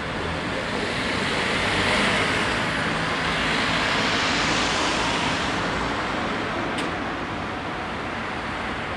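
Cars driving past over the crossing: tyre and engine noise that swells as a car passes about two to five seconds in, then fades away.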